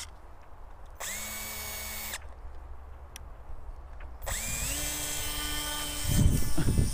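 Small brushless electric motor (DYS SE2205 2300kv) spinning a 6x4 pusher propeller on an RC plane: a short burst of throttle about a second in that spins up to a steady whine and cuts off, then a second spin-up about four seconds in that holds at a steady whine for the launch. A loud low rumbling noise comes near the end.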